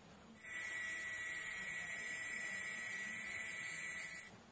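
Small DC mini water pump's motor running dry on a 9V battery: a steady, high-pitched buzzing whine that starts abruptly about half a second in and cuts off just before the end.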